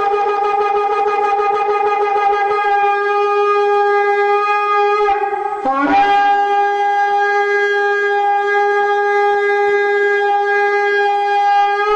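Shofar blown in long held blasts on one steady note. The first blast breaks off about five and a half seconds in, and the next starts with a brief upward slide into the same note and holds.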